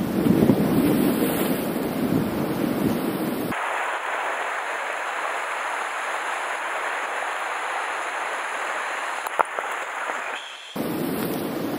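Sea wind buffeting the microphone over waves breaking on rocks. For several seconds in the middle the sound turns to a thinner, steady hiss of surf washing against the rocks, with one sharp click near the end of that stretch, before the gusty rumble returns.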